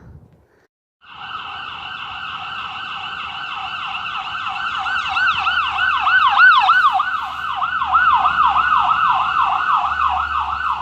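Electronic emergency-vehicle siren in a fast yelp, its pitch rising and falling rapidly and evenly, starting about a second in and growing louder towards the middle.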